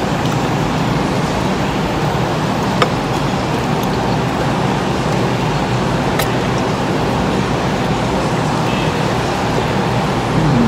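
Steady, loud background rumble with two sharp clicks, about three seconds apart.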